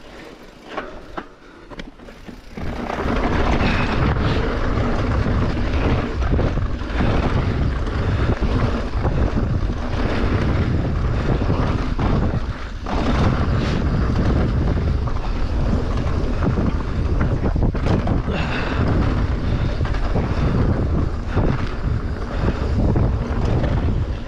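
Wind buffeting the microphone and the mountain bike's tyres rumbling and rattling over a dirt trail at speed. It is quieter for the first couple of seconds, with a few clicks, before the loud rushing sets in.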